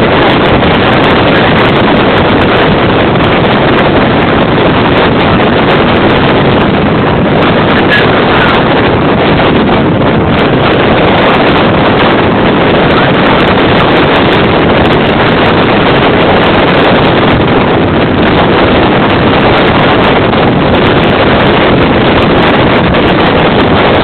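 Strong wind blasting across the microphone: a loud, steady, unbroken rush of noise.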